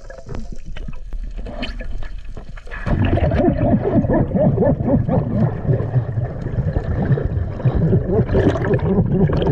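Underwater bubbling and gurgling of air and water around the camera, with scattered clicks at first, turning to a much louder, churning gurgle about three seconds in as a cloud of bubbles rushes past.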